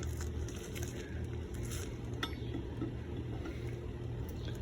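A lug wrench working the lug nuts on a car wheel, with a few faint metal clicks, one plainer about two seconds in, over a steady low hum.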